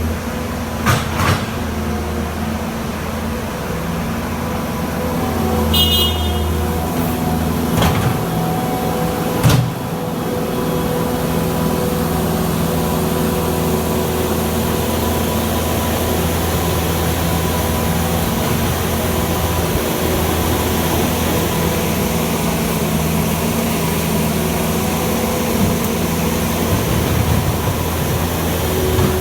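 New Holland L220 skid steer's diesel engine running steadily while the machine works, with a few sharp clanks in the first ten seconds.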